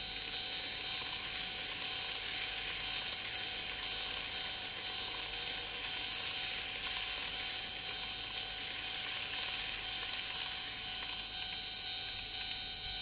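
Model train running along the track, its small motor giving a steady high whine over a rattle of wheels and mechanism.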